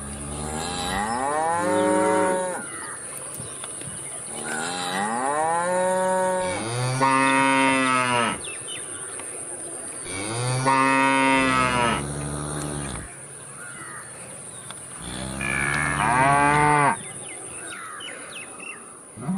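A cow mooing: five long moos of about two seconds each, every one rising and then falling in pitch, two of them back to back near the middle.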